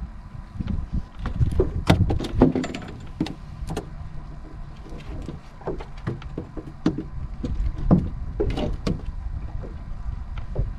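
Scattered knocks and clicks from rod, reel and hands working at the boat's side while a hooked fish is reeled in and landed, over a steady low rumble.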